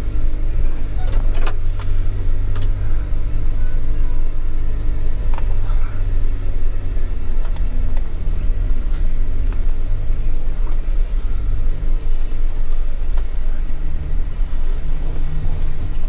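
A four-wheel-drive vehicle's engine running at low revs as it crawls up a rough dirt trail, its pitch rising and falling a little with the throttle. A few sharp knocks, mostly in the first six seconds.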